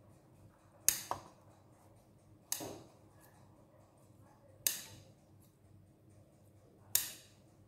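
Scissors snipping the crusts off slices of white sandwich bread: four sharp cuts about two seconds apart, each fading quickly.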